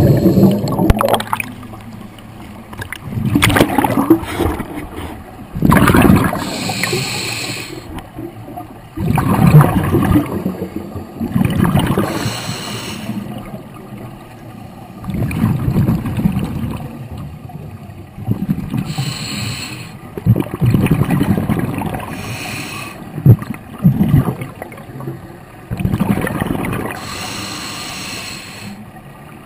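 Scuba diver breathing through a regulator underwater: a hissing inhale about every six seconds, with bursts of gurgling, rumbling exhaled bubbles between them.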